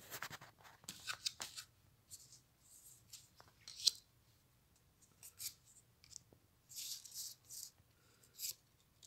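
Trading cards being picked up and laid out on a table: short scattered rustles and scrapes of card sliding against card and over the tabletop, with a sharper flick a little before four seconds.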